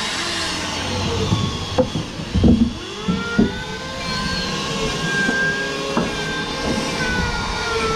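A motor running with a steady whine that drifts a little in pitch, with a few sharp knocks, the loudest about two and a half seconds in.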